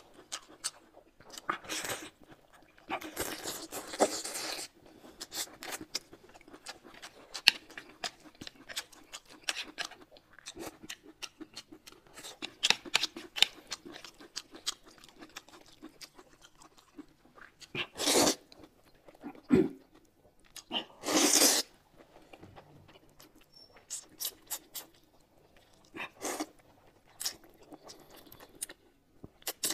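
Close-miked eating sounds: chewing and crunching with many small wet clicks, and a few louder bursts as noodles are slurped.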